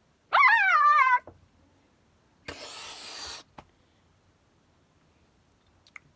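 A cat gives one drawn-out meow that rises and then falls in pitch. About two seconds later comes a short burst of hissing noise, and near the end a couple of faint clicks.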